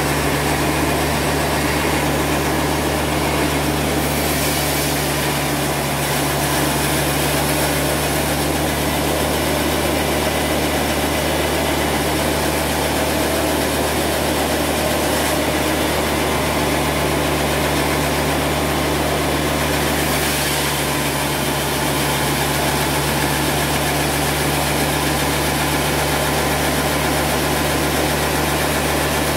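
Sawmill band saw and its drive engine running steadily, a constant low hum under a dense rushing noise.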